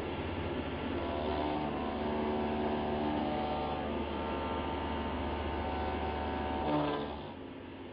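Table-mounted router cutting a wooden grill ring, heard slowed down with the slow-motion picture: a deep, steady hum with a few held tones above it. It swells briefly about seven seconds in, then drops off.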